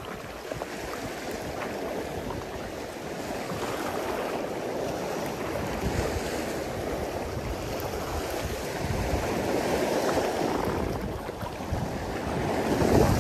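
Small waves washing against a rocky shore, with wind buffeting the microphone and gusting harder in the second half.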